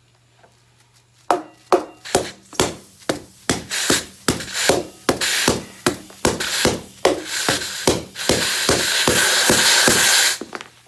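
Compressed air being forced into a motorcycle tire to seat its bead on the rim. First comes a run of sharp pulses, about two to three a second, then a steady rush of air for about two seconds that cuts off suddenly.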